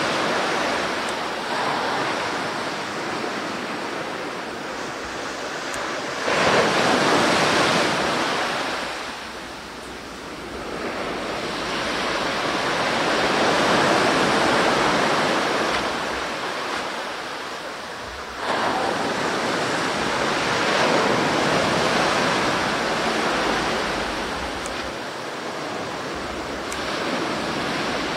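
Sea surf on a beach: a steady rush of waves that swells and ebbs, with a wave breaking sharply about six seconds in and another about eighteen seconds in.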